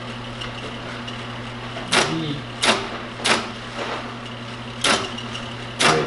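IBM 029 keypunch punching a card as keys are typed: sharp mechanical clacks, about five at an uneven typing pace starting about two seconds in, over a steady hum. The restored keyboard is working.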